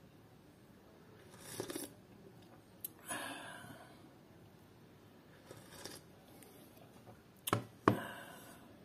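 A glass tea cup handled on a wooden tray: two sharp knocks close together near the end, after a few soft breathy noises.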